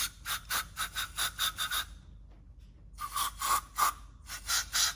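WD-40 brake and parts cleaner aerosol sprayed in quick short squirts, about four or five a second, washing out a brake master cylinder. A first run of squirts stops about two seconds in and a second run starts a second later.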